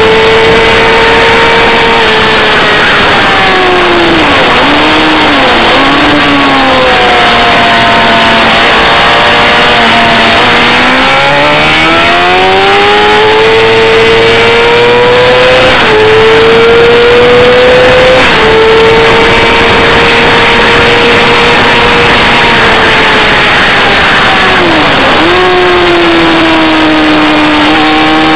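Engine of a vehicle being driven hard around a race track, loud and continuous. Its pitch climbs under acceleration and drops sharply at each upshift. It falls with short revs as the vehicle slows, around 4 to 6 seconds in and again near 25 seconds.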